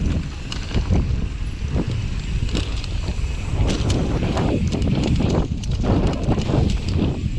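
Mountain bike ridden fast down a dirt trail, heard from an action camera on the bike: wind buffeting the microphone, with tyres on dirt and leaves and the bike's chain and parts rattling and clicking over the bumps.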